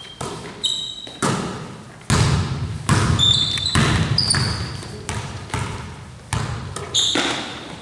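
A basketball being dribbled on a gym floor: irregular echoing bounces, with a few short, high sneaker squeaks between them.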